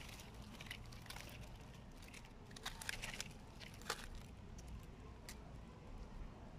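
Yellow-margined box turtle biting and tugging at an earthworm among dry moss and leaves: faint crackles and clicks, a cluster about three seconds in and the sharpest click just before four seconds.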